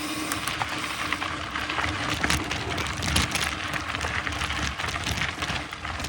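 Mountain bike riding over a dirt and gravel trail: steady tyre crunch and rolling noise, with a low rumble and many small rattles and clicks throughout.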